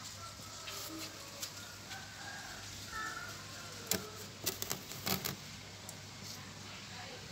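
Quiet outdoor ambience with a low steady hum and a few faint short chirps, broken by a cluster of sharp clicks about four to five seconds in.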